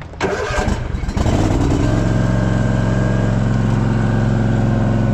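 The Gravely ZTXL's Kawasaki FS651V V-twin engine cranks briefly and catches about a second in. It then runs steadily at idle, the first run after a fresh oil change and tune-up.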